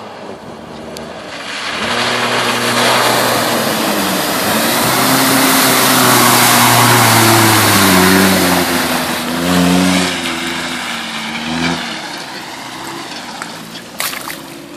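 Toyota pickup truck's engine revving hard as it plows through deep mud, its pitch rising and falling with the throttle over a loud rush of spraying mud and water, then fading away. A few sharp steps in wet mud near the end.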